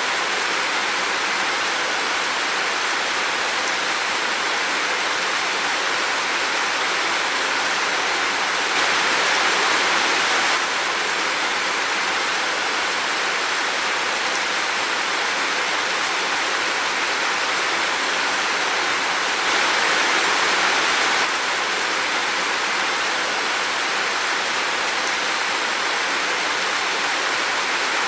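Heavy rain falling steadily, a dense, even hiss that swells slightly twice for a second or two.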